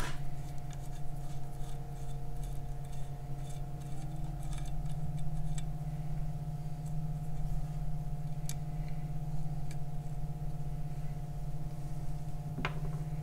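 Light rapid clicking of a ratcheting wrench backing lock nuts off the water pump housing studs of an outboard lower unit, over a steady low hum.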